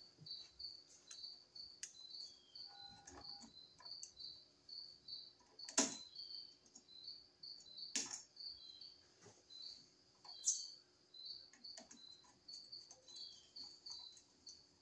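A cricket chirping faintly and steadily, about three high chirps a second, with a few sharp clicks and taps of hand tools on a wall switch and its terminal screw, the loudest about six and ten seconds in.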